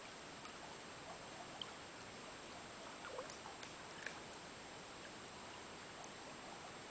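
Shallow stream running over stones, a steady rush of water, with a few faint ticks and plips near the middle.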